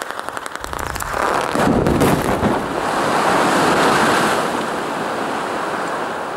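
Quarry blast of about 8.5 tonnes of explosives: a rapid crackle of detonations that fades about a second in, giving way to a loud rumble that builds over the next few seconds and slowly dies away.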